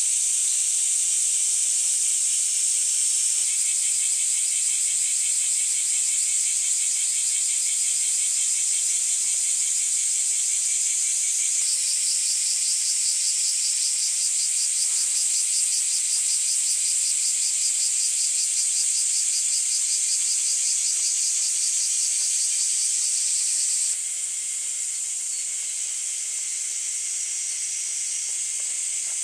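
Outdoor chorus of singing insects: a steady high-pitched shrill with several rapid pulsed trills layered over it. The mix of trills changes abruptly a few times, and the chorus drops slightly in level near the end.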